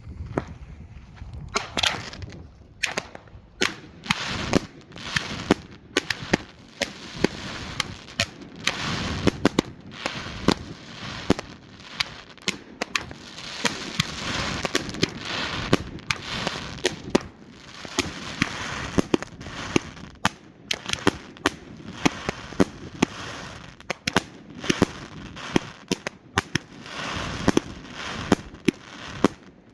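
A Night Owl 'Big and Beautiful' 2-inch 66-shot compound firework cake firing, starting about a second and a half in: a fast, continuous string of shell launches and huge, hard-hitting aerial breaks, often several bangs a second.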